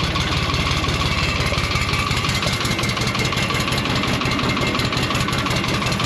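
Diesel tractor engine idling steadily, its firing strokes coming in a fast, even rhythm.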